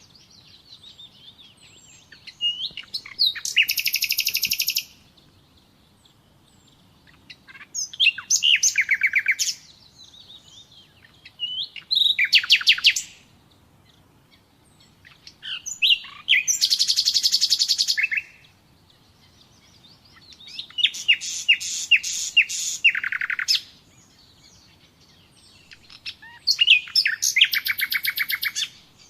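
Common nightingale singing: six loud phrases, each a rapid run of repeated notes lasting one to three seconds, separated by short pauses filled with soft twittering.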